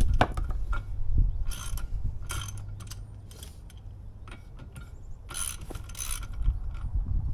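Socket ratchet clicking in several short bursts as it backs the propeller nut off an outboard's prop shaft, with pauses between the strokes.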